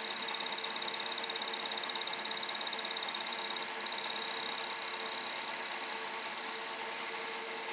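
Vertical milling machine with its end mill cutting a keyway in the bore of a gear: a high, rapidly pulsing cutting whine over the steady hum of the mill. About halfway through, the whine rises in pitch and grows louder.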